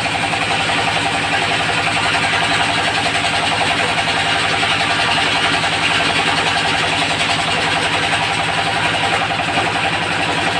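Diesel engine of a mobile circular sawmill (serkel) running steadily, with a fast, even engine beat.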